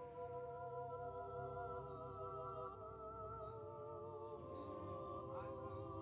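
Background music of slow, sustained notes held together, each with a gentle vibrato.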